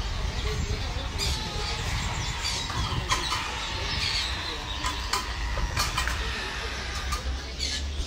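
Many caged songbirds chirping and calling at once, a dense overlapping chorus of short high notes and quick whistled glides, over a low steady rumble.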